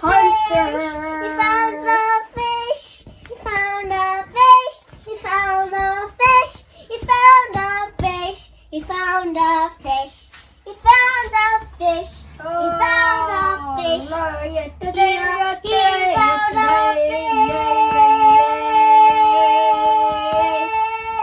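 A child singing a tune in short phrases, then in longer lines that end on one long held note.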